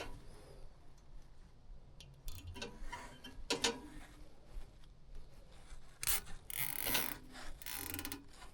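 Plastic zip ties being pulled tight around furnace wiring, ratcheting in short rapid runs, with scattered clicks and handling noise in between.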